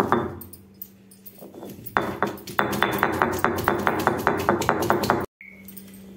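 Ginger, garlic and fennel seeds being pounded on a granite grinding slab with its heavy stone pestle: a loud strike at the start, then about two seconds in a quick, even run of sharp knocks, several a second, that cuts off abruptly near the end.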